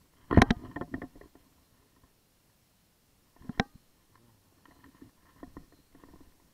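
Hands grabbing and handling a landed largemouth bass on grass: a burst of thumps and rustling near the start, a single sharp click about three and a half seconds in, then softer knocks and rustles.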